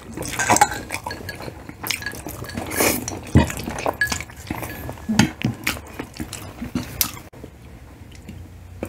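Eating sounds at a close microphone: cutlery clinking and scraping on plates, with wet chewing of spaghetti and fried chicken, in irregular short clicks that thin out near the end.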